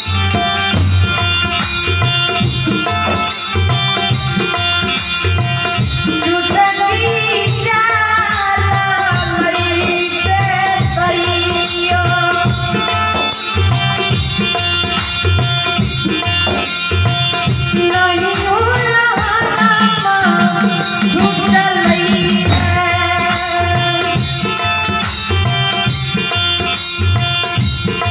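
Instrumental interlude of Bhagait folk devotional music: a Roland keyboard plays a bending, gliding melody over a steady percussion beat.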